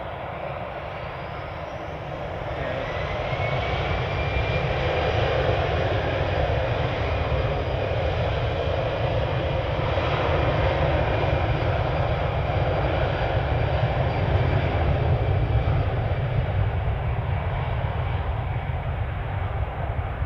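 Airbus A319-112's CFM56 turbofan engines spooling up: a whine rises in pitch about two seconds in and the sound grows louder. It then holds steady and loud as the airliner rolls along the runway, typical of thrust being set for takeoff.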